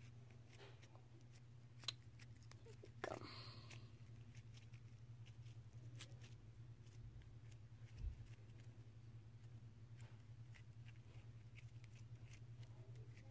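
Near silence: a steady low room hum with faint scattered clicks, a sharp tick about two seconds in, a short rustle soon after, and a soft knock about eight seconds in. These are small handling noises as homemade slime is worked with a wooden craft stick in a plastic bowl.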